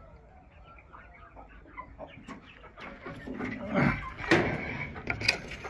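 Chickens clucking, faint at first and picking up about halfway in, with a couple of sharp clicks near the end.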